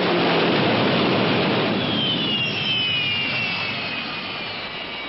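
Batmobile's jet-turbine sound effect: a loud rushing whoosh that slowly dies away, with a high whine that slides down in pitch from about two seconds in as the car winds down.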